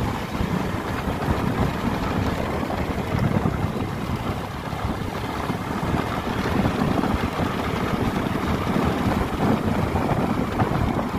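Steady wind rush on the microphone of a moving motorbike, with road and engine noise of the ride beneath it.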